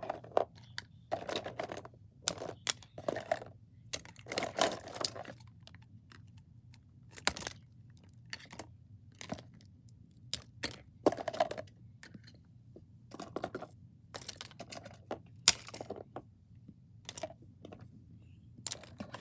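Fidget toys being picked up, moved and set down one after another: irregular clicks and short clatters of small plastic objects.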